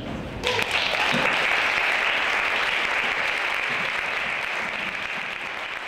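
Audience applauding, starting about half a second in and slowly fading.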